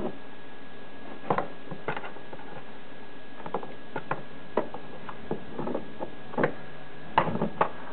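Irregular light taps and scrapes of a thin stick knocking against a cardboard box as a kitten bats at it, the loudest few clustered near the end.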